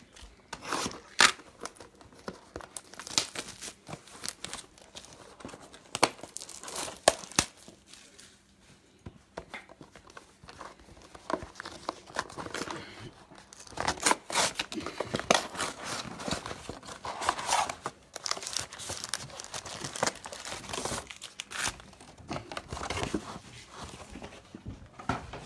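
A cardboard trading-card hobby box (2018 Panini Phoenix football) being torn open by hand, with sharp rips and tears in the first half, then a longer stretch of crinkling and rustling as the foil card packs are pulled out and stacked.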